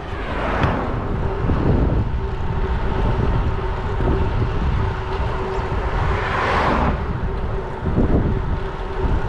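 Wind rushing over the microphone of a gravel bike being ridden along a concrete road, with its tyres rolling and a steady faint hum underneath; the rush swells twice, about half a second in and again near the end.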